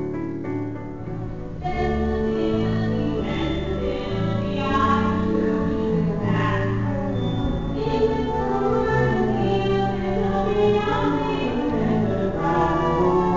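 Singing voices with musical accompaniment, a number from a staged musical performance, filling in about two seconds in after a brief quieter lead-in.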